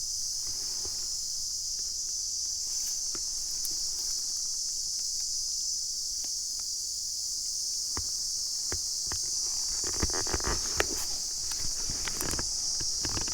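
Steady high-pitched chorus of forest insects, crickets or similar, with scattered clicks and a short spell of scuffing noises near the end.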